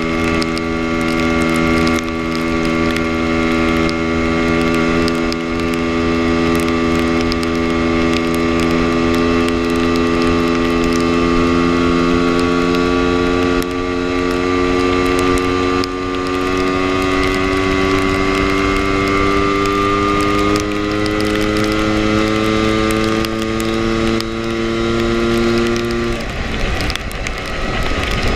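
Lambretta scooter's two-stroke single-cylinder engine running at cruising speed, heard from the rider's seat over low wind rumble. Its note climbs slowly as the scooter gathers speed, then drops away near the end as the throttle is rolled off.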